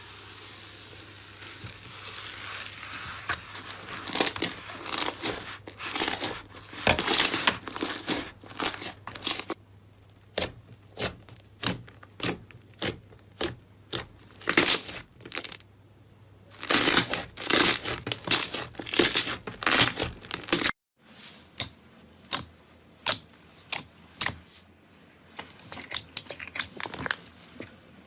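Slime being squeezed and pressed by hand, giving runs of short crackling and popping sounds. A brief gap about three quarters of the way through is followed by sparser pops.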